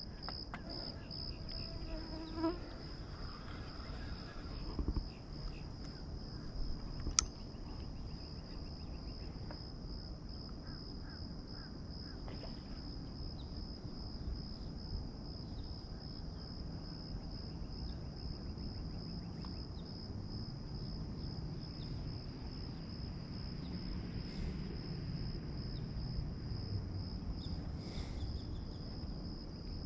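Insects calling in a steady, high, evenly pulsing chorus, over a low rumbling background. A single sharp click about seven seconds in.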